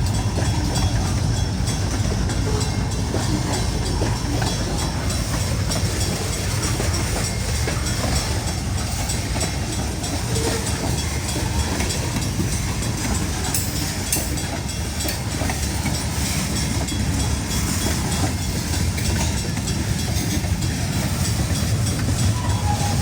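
Great Lakes Central Railroad train rolling past steadily, a continuous low rumble with the clatter of wheels on the rails.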